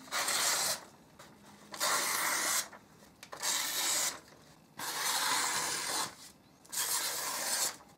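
The freshly sharpened and polished cutting iron of a Stanley No. 4 bench plane slicing through a sheet of lined paper in five strokes, each under a second or so, with short quiet gaps between. The clean slicing is a test of the edge's sharpness.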